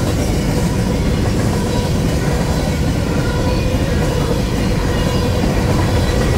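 Empty covered hopper cars of a grain train rolling past at about 50 mph: a steady, loud rumble of steel wheels on rail, with a faint steady whine above it.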